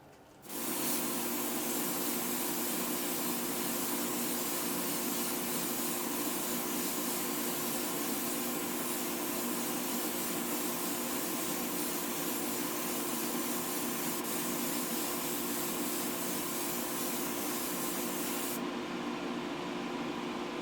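Airbrush spraying gold paint in a steady hiss, with a steady low hum underneath. The hiss thins out near the end as the spraying lets up, while the hum carries on.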